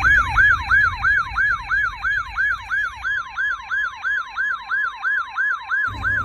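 Yelp-style siren sweeping up and down in pitch about three times a second. A steady tone joins it about halfway through.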